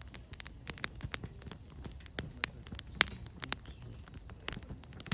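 Wood fire crackling: irregular sharp pops and snaps, several a second, over a low background rumble.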